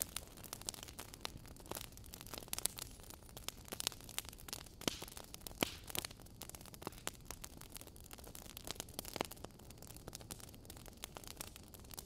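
Logs burning in a fireplace, crackling with frequent irregular pops and snaps over a steady low rush of the fire.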